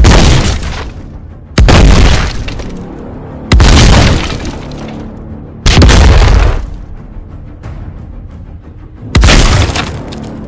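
Explosion sound effects played one after another: five sudden blasts, each fading out over about a second, over steady background music.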